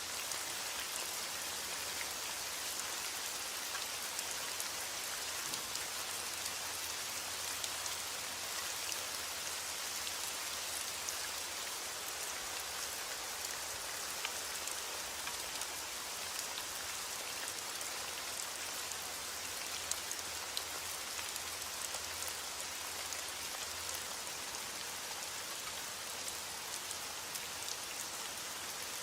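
Steady rain falling: a dense, even hiss of countless drops, with the small ticks of single drops picked out now and then.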